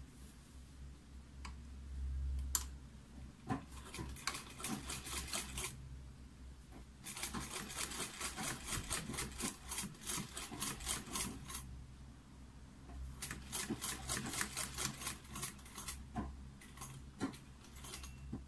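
Domestic sewing machine stitching through layered bag fabric in three runs of a few seconds each. Each run is a regular clatter of stitches, with short pauses between runs as the fabric is repositioned.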